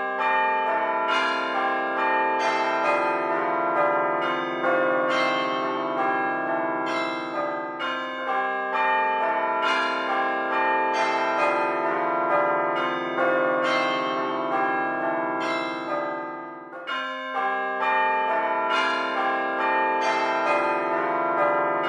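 Church bells pealing, many bells struck in quick succession with their ringing tones overlapping. The peal fades briefly about three-quarters of the way through, then starts again.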